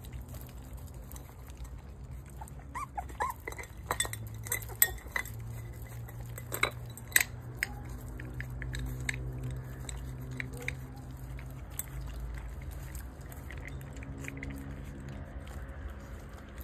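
Young puppies eating from a food bowl: the bowl clinks sharply several times and there is chewing. A few short puppy whimpers come about three seconds in.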